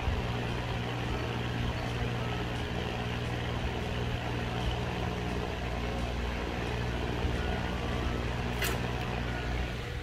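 Electric fan running steadily: an even rush of moving air over a low, constant motor hum. A single brief click sounds near the end.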